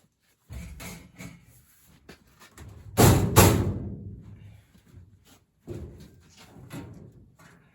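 Work knocks and clatter during a furnace installation, with two loud bangs in quick succession about three seconds in, each followed by a short ring.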